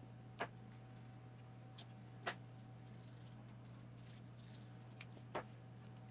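A knife cutting a whole raw chicken apart on a plastic cutting board: three sharp clicks, about two and three seconds apart, over a faint steady hum.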